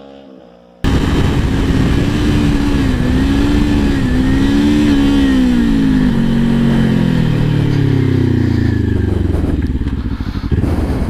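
Kawasaki Ninja 400 parallel-twin running loud through a Fuse Racing slip-on exhaust with its dB killer fitted. The sound starts abruptly about a second in, and the engine note wavers up and down for a few seconds. From about the middle on, the pitch falls steadily as the revs drop.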